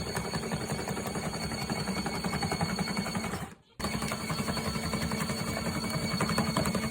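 Portable washing machine spin-drying: the spin motor runs with a fast, steady rattle of vibration over a constant hum. It cuts out for a moment about halfway through, then carries on as before.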